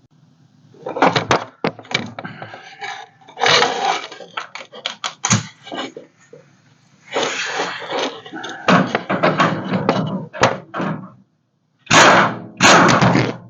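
Hand tools and metal parts clattering and knocking in irregular bursts, with a loud run of clatter near the end.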